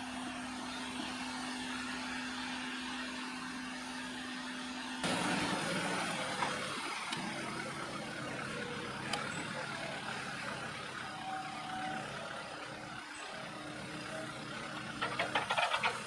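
Diesel engines at work. A Case tracked excavator's engine runs with a steady hum for about the first five seconds. Then a Cat TH407 telehandler's engine works as it lifts a bucket of chopped maize silage over a lorry's bulk trailer, with a quick rattling clatter near the end as the bucket tips the load.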